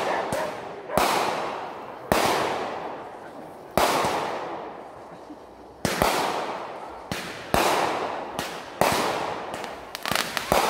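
Aerial fireworks going off: about ten sharp bangs, roughly one a second, each trailing off in a long fading echo, with a quick run of bangs near the end.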